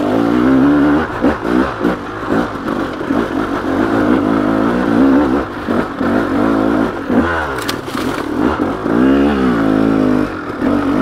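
2012 KTM 300XC's single-cylinder two-stroke engine revving up and down again and again as the throttle is worked, pulling in second gear up a loose rocky climb.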